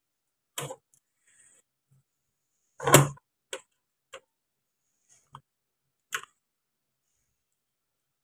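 A screwdriver and a copper wire clicking and knocking against a DC motor drive's plastic screw terminal block as the field wire is fitted: six separate clicks, the loudest about three seconds in.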